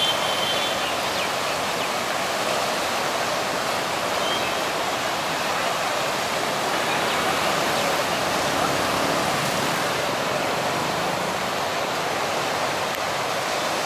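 Steady rushing of the Bagmati River in flood, swollen and fast-flowing after heavy rainfall.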